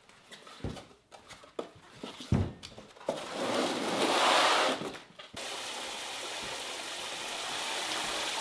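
Cabbage heads set down on a kitchen counter with a few dull knocks, and a louder rustling of the cardboard box they come out of. About five seconds in, a kitchen faucet starts running steadily into a plastic fermenter bucket in a steel sink.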